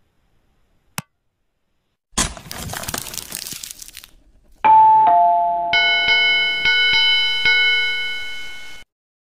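Edited-in sound effects: a single click, then a rustling noise of about two seconds. After it comes an electronic ding-dong doorbell chime, two falling notes, and then a ringing chord of chime tones struck about four times, fading and cut off suddenly near the end.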